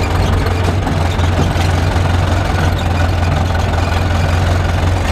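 Tractor diesel engine running steadily at an even, low speed, heard from inside the cab.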